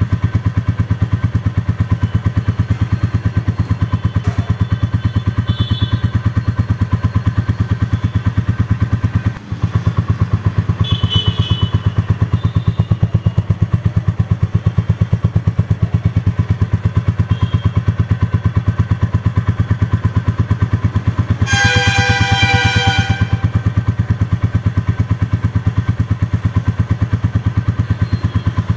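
Motorcycle engine idling with a rapid, even thump that never changes. A short pitched tone sounds over it about three-quarters of the way through.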